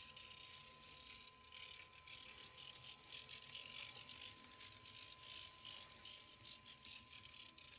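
Kato N-scale EF64 1000-series model locomotive running, its motor and gear train giving off a rapid, fine rattling clatter. This is the abnormal noise that is still there after the maker's repair.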